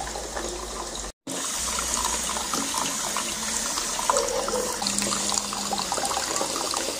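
Water trickling and splashing, with a fine hiss from a hand-pump pressure sprayer misting the plants. The sound cuts out briefly just after a second in.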